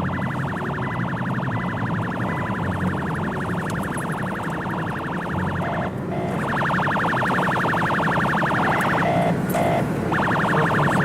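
Vehicle siren warbling rapidly over the low hum of a moving vehicle, cutting out briefly about six seconds in and again about nine seconds in.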